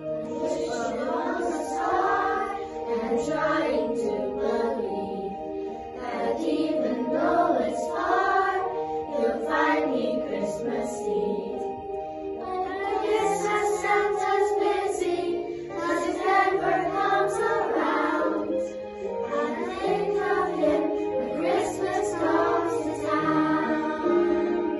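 Children's choir singing together, phrase by phrase, over steady instrumental accompaniment with held notes and a simple bass line.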